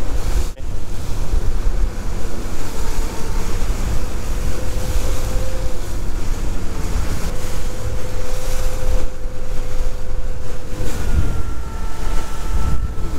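Bulls Bay 2200 bay boat running through a swell: its outboard motor drones steadily under the rush of water along the hull, and heavy wind buffets the microphone. A faint higher engine whine joins near the end.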